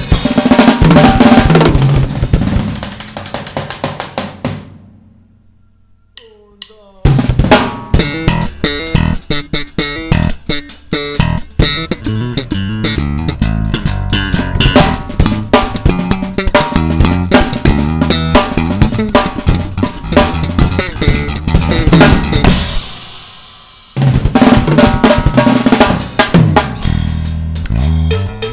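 Pearl drum kit played hard over music with a bass line. About five seconds in the sound dies away and is nearly silent for two seconds before the drums come back in. A little after twenty seconds it fades out again, then starts up once more.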